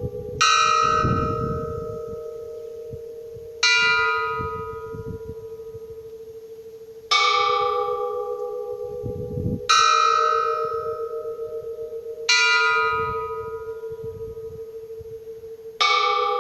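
Church bell struck slowly, six strikes about three seconds apart, each ringing out and fading before the next.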